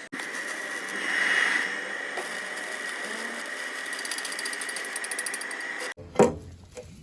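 A machine running steadily with a constant high whine, a fast ticking joining in toward the end. It cuts off abruptly and is followed by a single loud knock.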